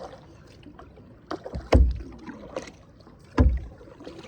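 Kayak paddle strokes through the water, with two loud, low thumps about a second and a half apart between lighter splashy strokes.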